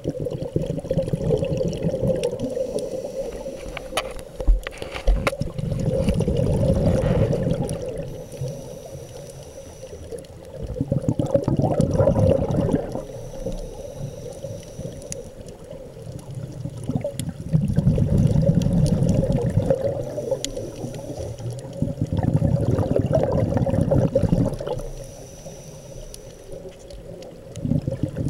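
Scuba breathing through a demand regulator underwater. Exhaled bubbles burble in loud surges about every five to six seconds, with quieter inhalations between.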